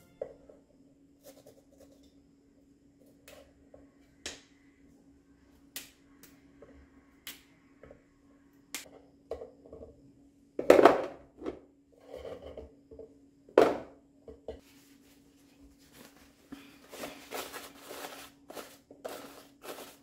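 Kitchen handling sounds: a knife clicking on a bamboo cutting board as cauliflower florets are cut, then two louder knocks from a plastic food container being handled, and paper towel rustling as it is pressed into the container near the end. A faint steady hum runs underneath.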